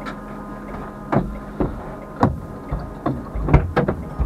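Rally car engine idling steadily, heard inside the cabin just after a roadside repair, with a series of irregular knocks and thuds from about a second in.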